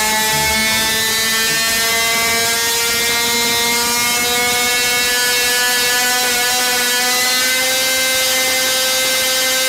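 Supercharged 50cc two-stroke engine, fed by a belt-driven Rotrex supercharger, running at high revs on a dyno, around 13,000 to 15,500 rpm. It holds a steady high-revving drone that rises slowly in pitch.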